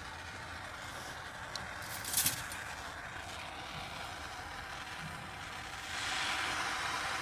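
Soldering gas torch hissing steadily while heating a seam with medium solder. There is a brief louder click about two seconds in, and the hiss grows louder and brighter about six seconds in.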